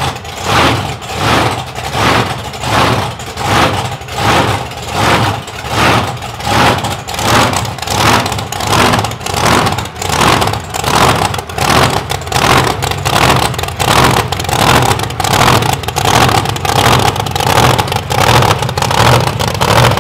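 Monster truck engine running as the truck rolls down the ramps out of its trailer. Its sound surges and falls in a regular rhythm about once a second over a steady low hum.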